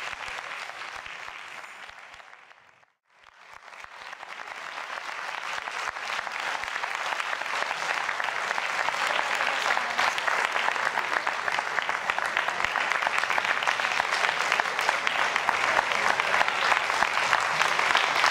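Audience applauding. The clapping fades out to a moment of silence about three seconds in, then comes back and builds up louder.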